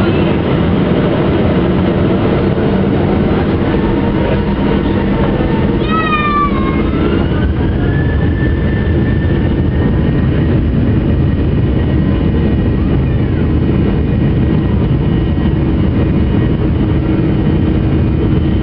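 Cabin sound of a Boeing 737-800's CFM56 jet engines on the takeoff roll: a loud, steady rush of engine and airflow noise, with an engine whine that rises and then holds about a third of the way through as thrust builds. A brief high cry, likely the child on board, comes just before the whine rises.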